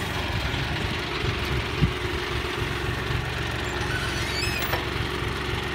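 John Deere 5045D tractor's three-cylinder diesel engine running steadily under load, pulling a disc ridger through grassy soil, with a single thump about two seconds in.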